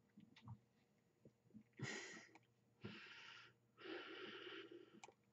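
Faint breathing as a man draws on a vape and blows out the vapor: three short breathy bursts about two, three and four seconds in.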